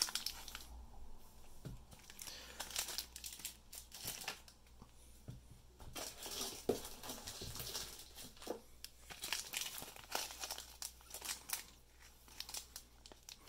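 Clear plastic repack bags and card sleeves crinkling and rustling as trading cards are handled, coming and going with small clicks and short quieter gaps.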